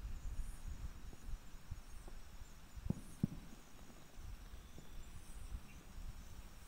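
Night mountain ambience: faint insects chirping high and repeatedly over a low rumble, with two short soft knocks about three seconds in.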